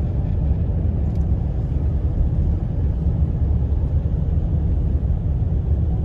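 A car driving along a paved road, heard as a steady low rumble of tyres and engine.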